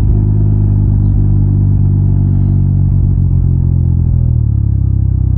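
Can-Am Ryker three-wheeler's engine running steadily under way, with road and wind noise; about four seconds in its pitch drops a little and the note turns pulsing as it eases off.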